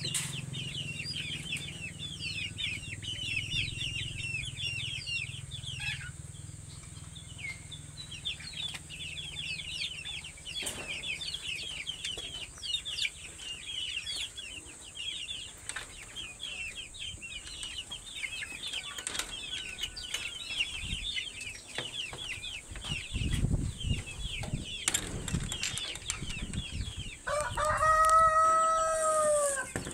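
Many days-old chicks peeping constantly in quick, high, falling cheeps. Near the end a rooster crows once, long and loud over them.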